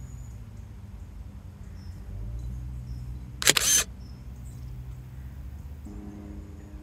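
A camera shutter clicks once, sharply, about three and a half seconds in, over a steady low outdoor rumble.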